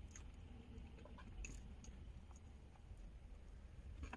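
Near silence: a faint low rumble and a few soft, scattered clicks of someone chewing food.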